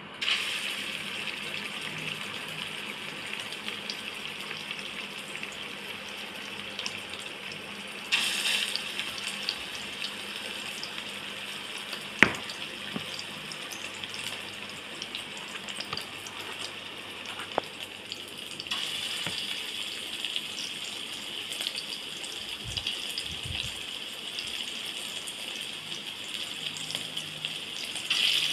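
Hot oil sizzling in a stainless steel wok as balls of seasoned minced beef fry in it: a steady hiss that grows louder about eight seconds in and again from about nineteen seconds, with one sharp clack near twelve seconds.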